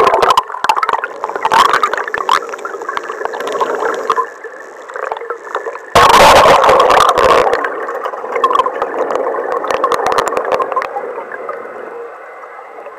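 Boat breaking through thick lake ice: two heavy crashes, one at the start and one about six seconds in, amid continuous crunching, scraping and crackling of broken ice that eases off near the end.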